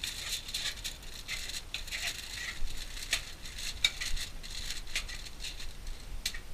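Aluminium foil crinkling in irregular small crackles as it is handled and a knife spreads butter across it.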